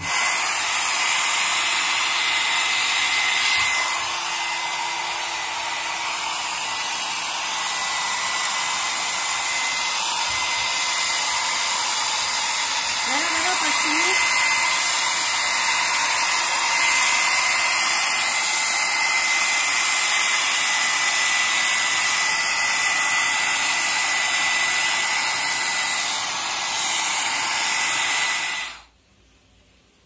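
Nova NHP-8100 1200 W foldable hair dryer running steadily: a rushing of air with a thin, steady high whine over it. The sound cuts off abruptly near the end.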